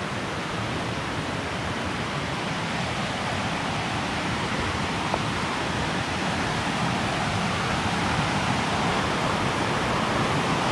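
Rushing water of a rocky creek's rapids, a steady rush that grows gradually louder.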